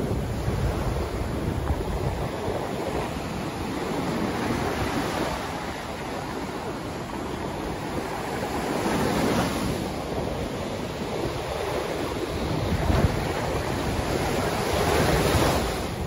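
Ocean surf breaking and washing up the beach in a steady rush of foaming water, swelling louder about nine seconds in and again near the end.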